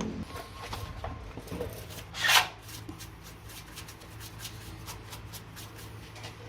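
Body filler on a car door sill being sanded by hand: a run of short, scratchy rubbing strokes, with one louder, longer hissing stroke about two seconds in.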